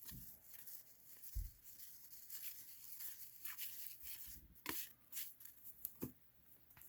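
Faint rustling and a few soft clicks of 1990 Fleer cardboard trading cards being handled and slid through one by one.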